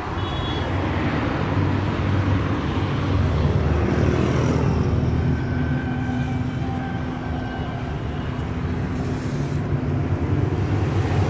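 Steady low rumble of vehicle engines and road traffic, heard from inside a car, growing a little louder over the first few seconds.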